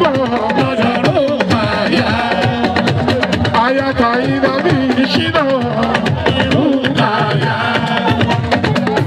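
Live Fuji music: a lead voice singing over a steady, busy beat of hand drums and percussion.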